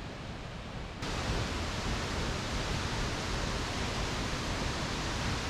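Steady rushing roar of Panther Creek Falls, a large waterfall, growing louder about a second in.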